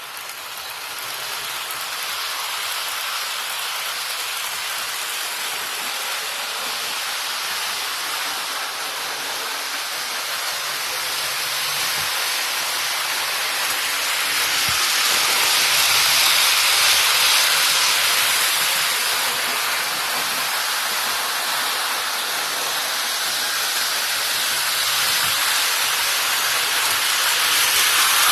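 Model trains running on the layout track: a steady hissing rumble of wheels and motors that grows louder about halfway through and again near the end, as a train passes close.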